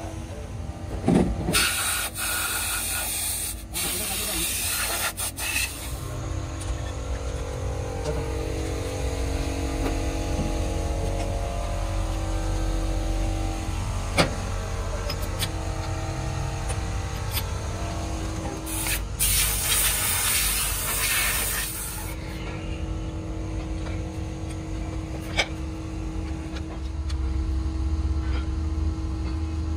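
Workshop noise: a steady low hum and rumble, broken by three loud bursts of hissing that last a few seconds each, the first two near the start and the third about two-thirds of the way through, with a few sharp clicks.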